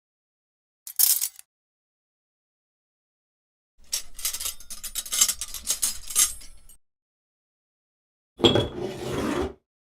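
Kitchen sound effects, one after another with dead silence between them: a short high clink about a second in, then about three seconds of rapid clinking and clattering of cutlery and dishes, then a fuller, lower clatter of about a second near the end.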